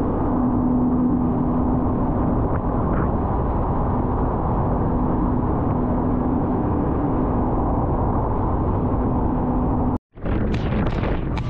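Engine running under way: a steady low rumble with a constant hum. About ten seconds in it cuts out for a moment and gives way to a noisier rush with sharp hissing spikes.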